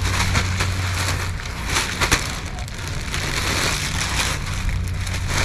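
Rustling and crinkling noise, sharpest in a short cluster about two seconds in, over a steady low hum.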